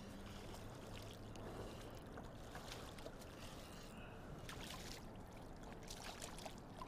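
A hooked bass splashing at the surface beside a kayak, then water splashing and dripping as it is grabbed by hand, in short, scattered splashes.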